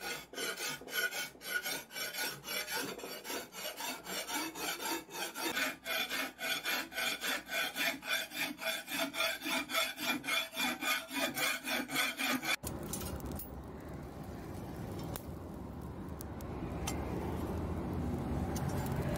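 Hand file scraping across the steel edge of a billhook blade clamped in a vise, in quick, regular strokes. About two-thirds of the way through it cuts off abruptly, and a steady rushing noise from the coal forge fire follows.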